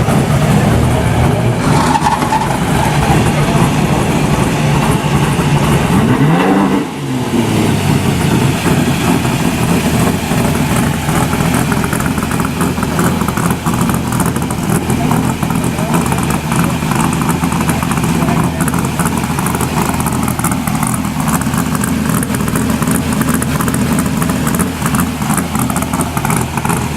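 Car engine running loudly, revved once about six to seven seconds in, its pitch climbing and then dropping away, then carrying on at a steady rumble.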